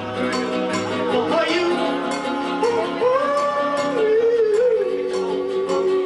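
A song with accompaniment and a steady beat. A sung voice slides between notes, then holds one long note through the second half.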